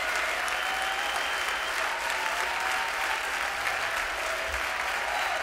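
Steady applause from a crowd, with a few faint held tones underneath.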